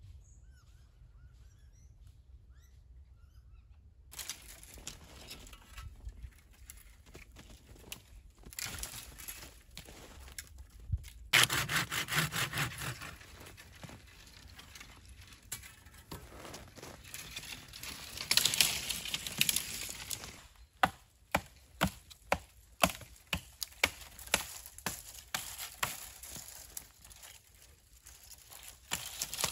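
After a few faint seconds, a folding hand saw rasps through thin green saplings in bursts of quick back-and-forth strokes. Near the end the strokes come slower, as sharp separate rasps a little under a second apart.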